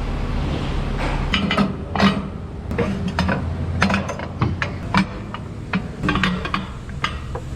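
Irregular metallic clinks and knocks, a dozen or so, over a steady low hum.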